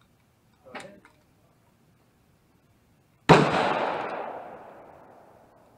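A single gunshot fired elsewhere on the range, a sharp crack about three seconds in that rings out and fades over about two seconds. Before it, a light click as a cartridge is pressed into a 9mm magazine.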